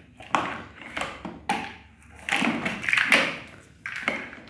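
Plastic building blocks clattering and scraping on a tiled floor as a toy excavator's plastic bucket pushes into them, in several short knocks and clatters.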